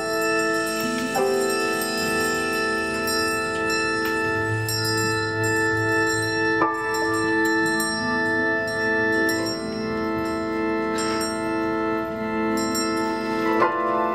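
Small experimental orchestral ensemble playing live: a dense wash of sustained held notes, with a new struck chord about a second in, another near the middle, and another near the end.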